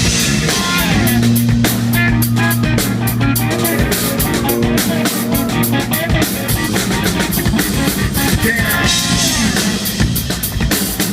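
Rock band playing live, with a drum kit and guitar. A low note is held for a few seconds near the start.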